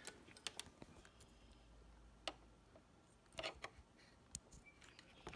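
A few scattered small clicks and taps from handling an oscilloscope test lead as it is hooked back onto a wire, against near silence.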